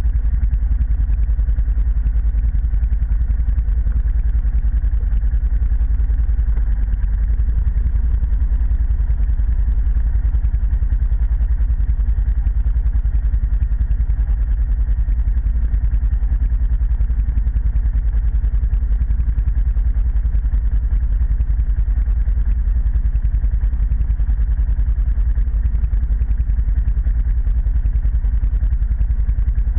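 ATV engine running at a steady pace, a continuous low drone with no change in speed.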